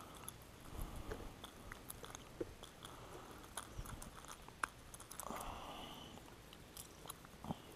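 Faint scattered clicks and rustles of gloved hands unhooking a bluegill from a topwater popper's treble hooks, with a few soft hushing swells.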